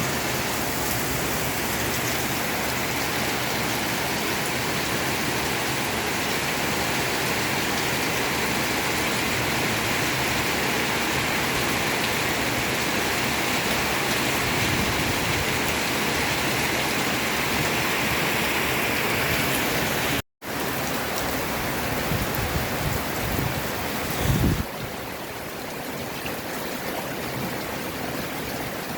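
Heavy rain falling in a steady, even hiss. About two-thirds through it cuts out for an instant. A few low thumps follow, and then the rain carries on slightly quieter.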